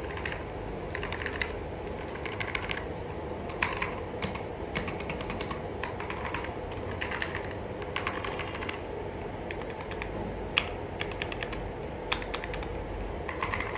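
Typing on a mechanical keyboard: bursts of rapid key clicks separated by short pauses, over a steady low background hum.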